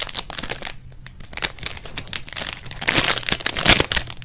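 Crinkling of a thin plastic bag around a squishy toy as it is handled, an irregular crackle that grows loudest about three seconds in.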